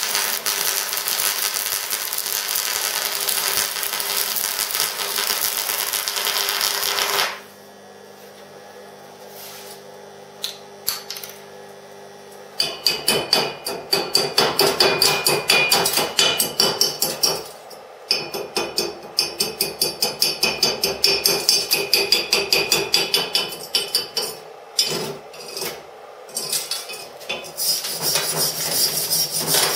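Stick-welding arc from a homemade microwave-oven-transformer AC welder crackling steadily for about seven seconds, then cutting off. After a quiet pause, a chipping hammer knocks slag off the fresh weld bead on a steel tube in quick runs of sharp metallic strikes, several a second.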